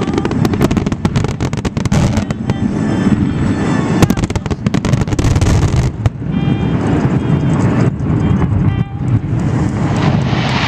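Fireworks display: a dense run of bangs and crackling bursts in quick succession. It thins in a brief lull a little past halfway, then a big burst comes near the end.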